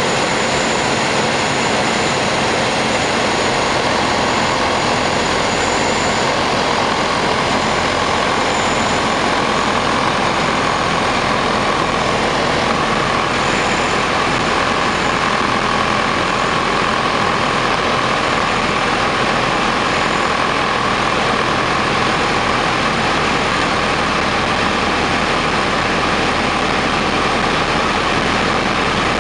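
Piper PA-28 Cherokee's piston engine and propeller running steadily in flight, heard from inside the cockpit as an even, unbroken drone.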